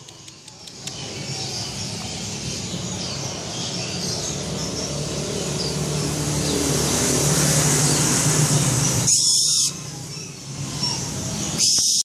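Young barn owl hissing in two short bursts, about nine seconds in and again at the very end, over a steady low traffic rumble.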